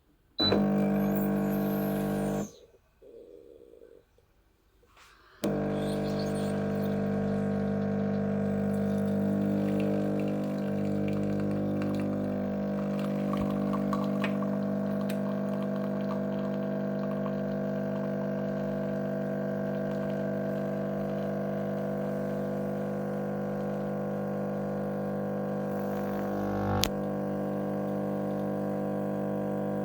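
Semi-automatic espresso machine's pump running with a steady droning hum. It runs briefly, stops, then starts again about five seconds in and runs on steadily, with a single click near the end.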